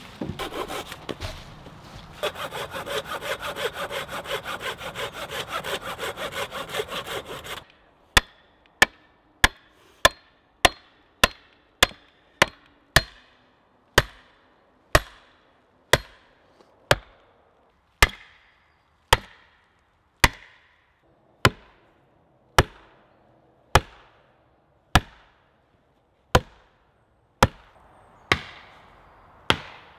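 A hand saw rasping quickly through a green branch, with a short pause about a second and a half in, stopping after about seven seconds. Then a steady run of sharp axe blows on wood, first quickly and then about one a second, with faint sawing under the last few blows.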